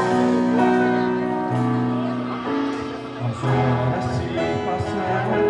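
Instrumental introduction of a soft gospel-style song: held keyboard chords with guitar, the notes changing every second or so.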